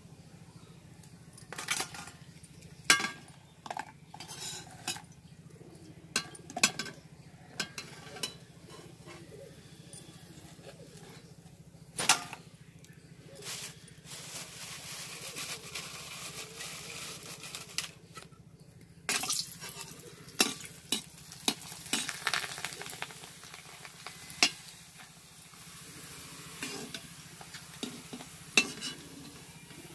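Besan badi (pakoda strips) frying in oil in a metal kadhai, a metal slotted spoon clinking and scraping against the pan as they are turned and lifted out, with stretches of oil sizzling about halfway through.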